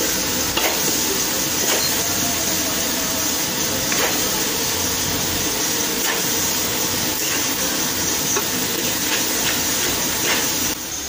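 A large batch of fried rice sizzling in a wide wok as a spatula tosses and scrapes through it, with a scrape or clink against the pan about once a second over a steady hiss.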